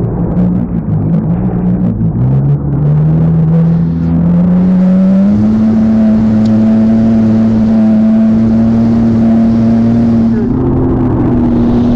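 An engine running hard. Its pitch rises over a few seconds as it speeds up, then holds steady at speed.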